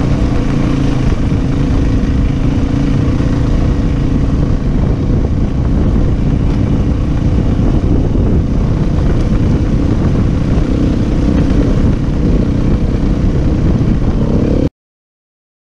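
Dirt bike engine running steadily while under way, heard on board the riding motorcycle, with a dense low rumble; it cuts off suddenly near the end.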